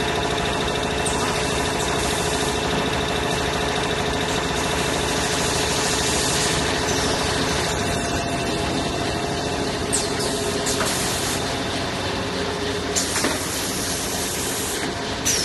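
Semi-automatic multi-roll toilet paper packing machine running, its conveyors carrying rolls: a steady mechanical hum with a few steady tones, broken by a few sharp clicks and short bursts of hiss.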